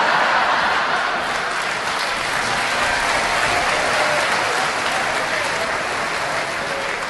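Audience applauding after a punchline, a steady wash of clapping that eases off slightly toward the end.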